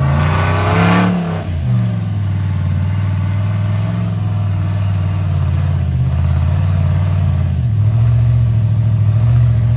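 Rock crawler's engine working under load as it climbs a rock ledge in low gear, the revs rising and falling with the throttle. There is a brief louder burst about a second in, and the engine revs higher from about eight seconds.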